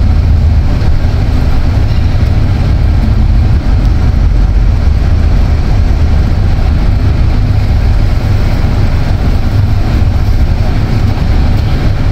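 Steady low rumble of a coach bus's engine and road noise, heard from inside the cabin as the bus creeps along in slow traffic.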